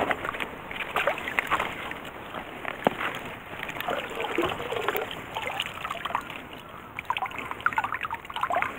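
A hand net pushed and swept through the weeds of a shallow creek bank, then lifted: irregular splashing and sloshing with scattered clicks and rustles, and water trickling out through the mesh.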